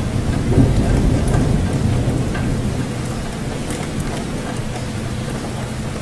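Water moving and bubbling in a hexagon aquarium: a steady low rumble of churning water with faint ticks of bubbles, a little louder in the first second or two.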